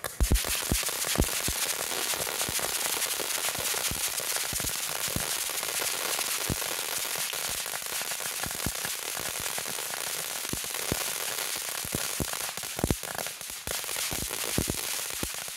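Trick Owl fountain firework spraying: a loud steady hiss thick with crackling pops, cutting off suddenly near the end as it burns out.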